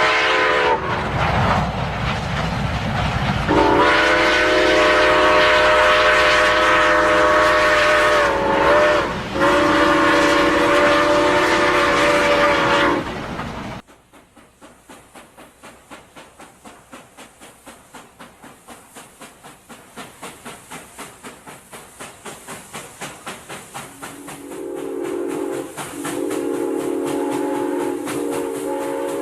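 A multi-tone train horn sounds in two long blasts over a low rumble. The sound then cuts off sharply, giving way to a steam locomotive's chuffing, which quickens as it gets under way. Near the end a chime whistle blows in short blasts over the chuffing.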